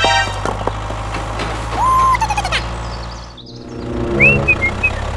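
Bird calls over a steady low hum: a hoot-like call about two seconds in, then short whistled chirps near the end.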